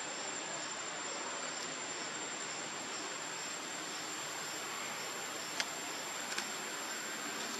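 Steady outdoor background hiss with a high, even whine and faint regular pulsing, broken by two short clicks in the second half.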